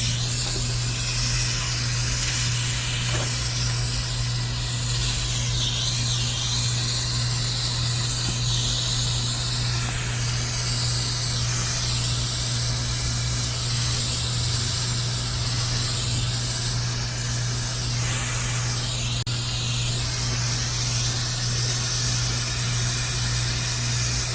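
Steady hiss of pressurised gas flowing, even in level throughout, over a constant low hum.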